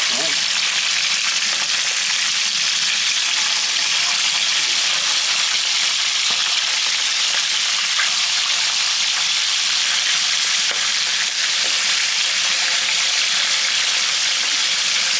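Milkfish (bangus) steaks frying in hot oil in a metal pan: a steady sizzle.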